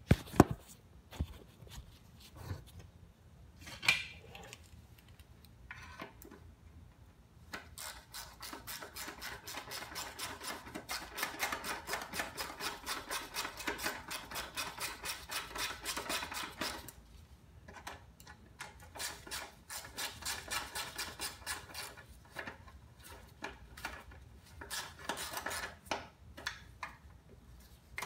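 Socket ratchet clicking rapidly in long runs as the bolts holding a lawn mower engine's blower housing are driven in, after a few sharp knocks of tool and metal at the start.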